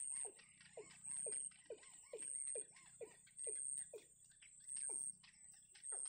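Animal calls: a high, thin buzz that pulses on and off about once a second, over a quick run of short, low, falling chirps about three a second.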